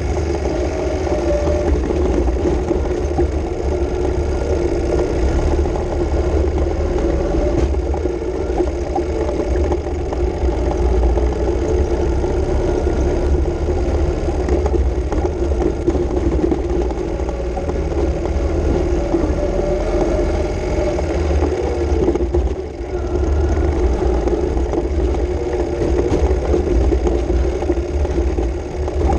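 Ural M67 sidecar motorcycle's flat-twin engine running steadily while riding along a dirt track. The engine sound dips briefly about three-quarters of the way through.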